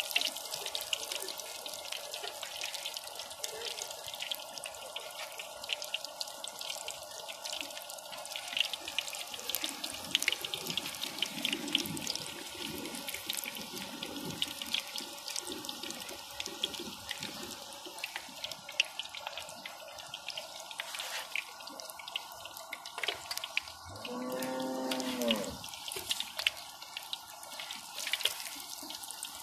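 Mughlai parathas deep-frying in a karahi of hot oil: a steady, dense crackling sizzle.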